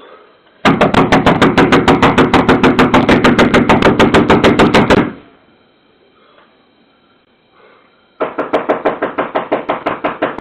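Frantic, rapid pounding on a front door, about nine blows a second, in two runs: one of about four seconds, then after a pause a second run starting near the end. Picked up at close range by a Ring video doorbell's microphone.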